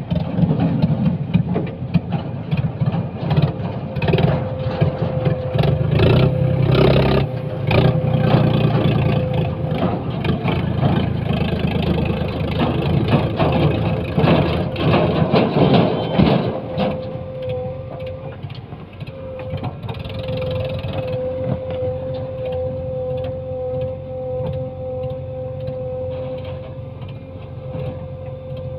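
Heavy diesel machinery working under load, with a steady whine and many clatters and knocks. About 17 seconds in it settles to a quieter, steady running.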